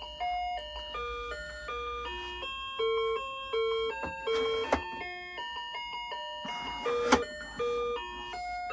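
1994 VTech Little Smart Table Talk electronic activity toy playing a simple beeping tune, one note after another. Two short hissy bursts come about halfway and three-quarters of the way through, with sharp clicks as its buttons are pressed.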